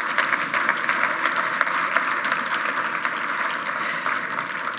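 Audience applauding: many hands clapping together in a dense, steady patter that eases slightly near the end.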